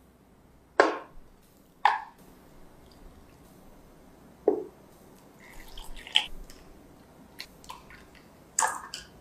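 Silicone whisk stirring melted white chocolate and cream in a glass bowl, giving a few sharp taps and wet drips a second or more apart. Near the end a brief splash as milk is poured into the bowl.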